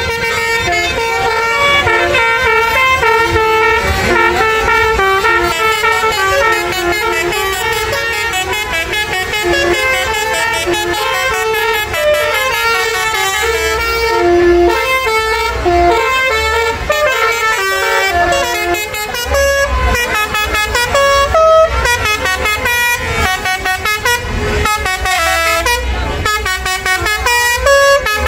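Melodic 'basuri' musical air horns on several tour buses sounding together in a horn battle: overlapping tunes of stepping notes, loud and continuous.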